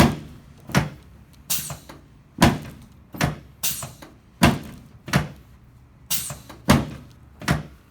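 Quick series of about ten sharp knocks and thuds from a chiropractic adjusting table as the chiropractor thrusts on the patient's pelvis, adjusting the left sacroiliac joint.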